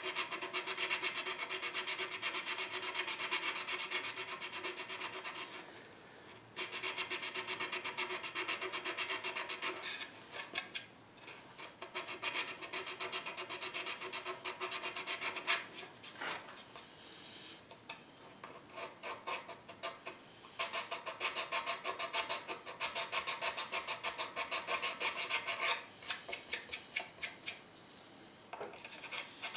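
A small hand file rasping back and forth along the edge of an f-hole in a wooden guitar body, in quick short strokes. The strokes come in several runs broken by short pauses. The edges of the f-hole are being smoothed and cleaned up before finishing.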